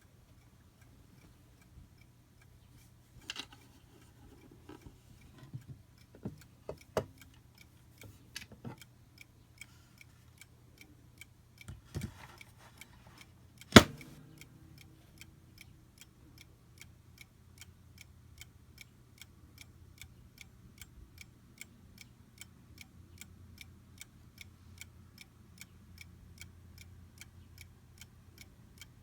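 A 1960s Franz Hermle spring-driven mantel clock ticking steadily, about two to three ticks a second, clearest in the second half. In the first half there are scattered irregular clicks and knocks, and one sharp loud click about halfway through.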